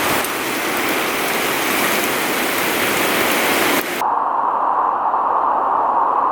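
Storm-force wind rushing and gusting, a loud, steady rushing noise. About four seconds in it cuts abruptly to a duller, narrower rushing with the hiss gone.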